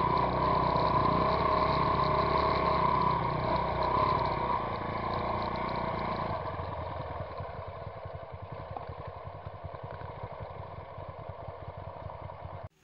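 Trail dirt bike engine pulling under load up a dirt climb, then dropping to a quieter low-speed run about halfway through as the bike eases off. It cuts off suddenly near the end.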